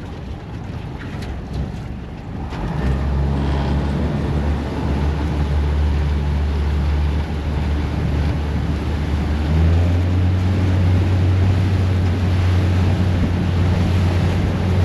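Boat motor starting about three seconds in and running steadily, with the engine speed stepping up about ten seconds in; wind noise on the microphone underneath.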